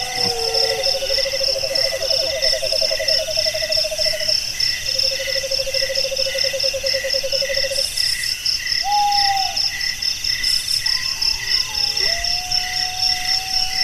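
Night chorus of insects (crickets) chirring in a steady, fast pulse, with two long low trills from another night animal in the first half, a short bent call about nine seconds in, and a long held whistled note near the end.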